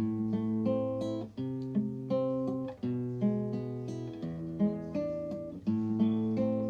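Background music: acoustic guitar, strummed and plucked chords changing about every second.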